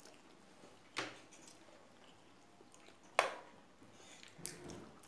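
Two sharp clicks of eating utensils against a plate or bowl, about a second in and again just after three seconds, the second louder. Faint eating sounds follow near the end.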